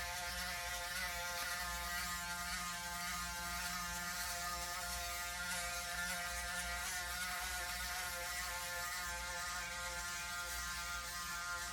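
Braun Series 9 Pro 9465cc electric foil shaver, fitted with a newly replaced motor, running with a steady even buzz as it shaves a head.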